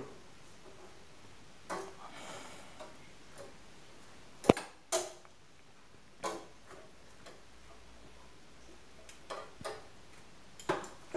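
Metal kitchen tongs clicking and tapping while turning chapatis on a gas stove, a scatter of short knocks with one sharp metallic click about four and a half seconds in.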